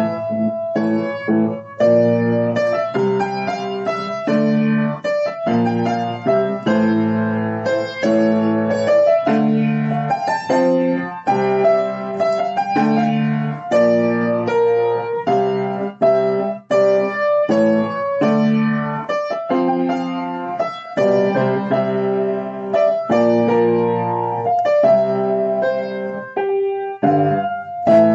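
Piano music: chords played at a steady, moderate pace.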